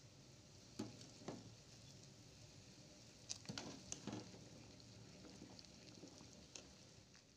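Faint metal ladle stirring a pot of boiling water, knocking against the aluminium pot a few times: twice about a second in, several times around the middle, once more near the end, over a low bubbling hiss.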